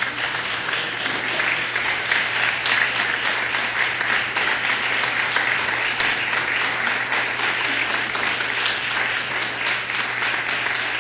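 Parliamentarians in an assembly chamber applauding: dense, steady clapping from many hands.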